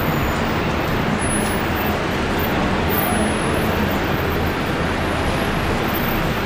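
Steady city road traffic: cars passing close by on the street, a continuous rumble and tyre hiss.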